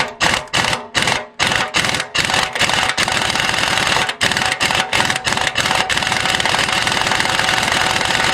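Impact wrench hammering on a cutting-edge bolt of the excavator blade: a string of short trigger bursts, then held on for several seconds without breaking the bolt loose.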